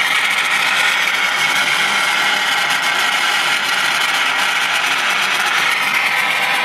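Sony ICF-6800 shortwave receiver's loudspeaker giving steady circuit hiss on shortwave with no station tuned: the set's own receiver noise with the preselector front end not connected, the sign that the repaired stages are alive and passing signal.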